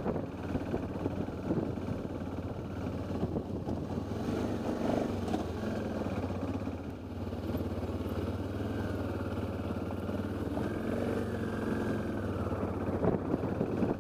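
Motorcycle engine running steadily as the bike rides along a rough gravel track, with short clicks and clatter from loose stones near the end.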